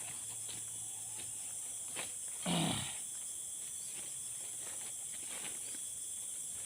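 Steady high-pitched insect drone, with faint scattered clicks of metal parts being handled as a brush cutter's blade is fitted. About two and a half seconds in comes one short, loud, throaty sound.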